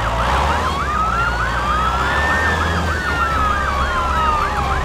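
Two electronic sirens sounding together: a fast yelp rising and falling about four times a second over a slower wail that rises once and falls back.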